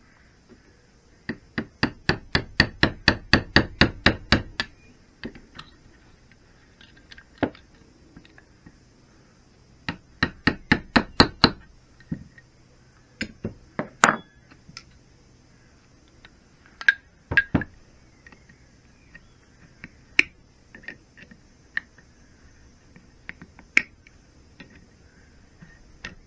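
Quick, light metal-on-metal taps, about five a second, from hand tools working a split pin out of an aluminium gearbox casing. A run of about three seconds comes first and a shorter run around ten seconds in, then scattered single clicks and knocks.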